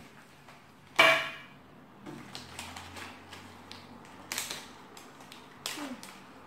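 Kinder Surprise egg's foil wrapper being torn and crinkled by hand, in short crackling rustles. About a second in, one sharp knock with a brief ringing tail, the loudest sound.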